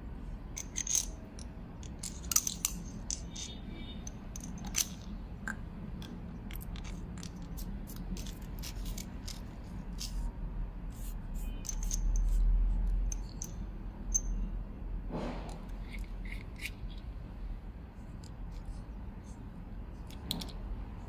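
Small scattered clicks and light scrapes of a black 2-AAA Mini Maglite's aluminium head and barrel being handled and fitted together. A low rumble lasts about a second a little past halfway, over a steady low hum.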